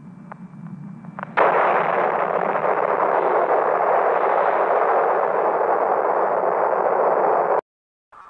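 Blast wave from a nuclear test explosion arriving: a few faint crackles, then about a second and a half in a sudden, loud, steady rushing noise that holds for about six seconds and cuts off abruptly.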